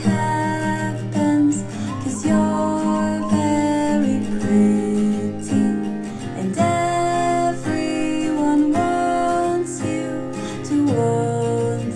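A song led by strummed acoustic guitar, played back through Harman Kardon SoundSticks 4 speakers.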